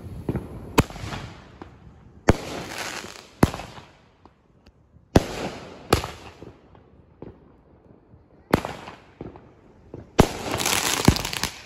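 Aerial fireworks bursting overhead: about eight sharp bangs, a second or two apart. Several are followed by a hissing crackle lasting about a second as the sparks burn out.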